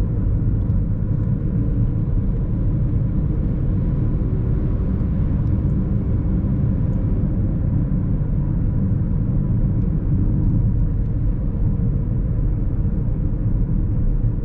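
Steady low rumble of a moving car heard from inside the cabin: engine and tyre noise on the road.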